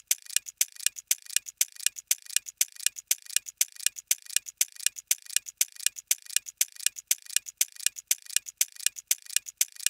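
Clock ticking sound effect: fast, even ticks, several a second.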